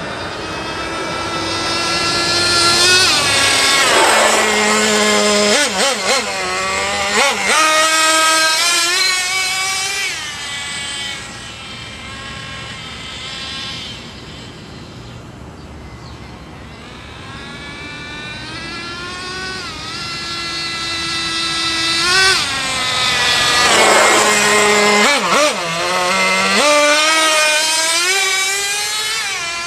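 Nitro-powered Traxxas Jato RC truck's small glow engine screaming at high revs, rising and falling in pitch as it accelerates and brakes. It passes close by several times with a sharp drop in pitch, fades to a distant whine around the middle, then comes back loud.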